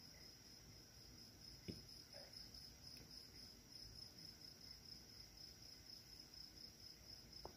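Near silence with the steady high chirring of a cricket chorus, and one faint tap about 1.7 seconds in.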